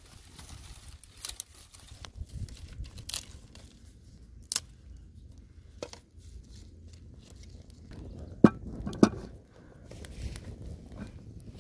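Dry sticks being snapped and laid on a small wood fire, with a sharp crack every second or so. About two-thirds of the way in come two heavier knocks half a second apart as a blackened cooking pot is set down on the hearth stones.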